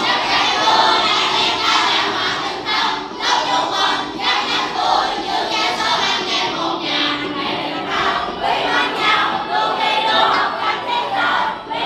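A large group of schoolchildren singing together along with a karaoke music track.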